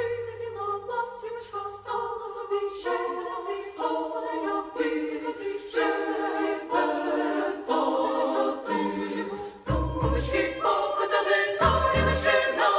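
Background music: a choir singing in sustained chords, with low bass notes coming in about ten seconds in.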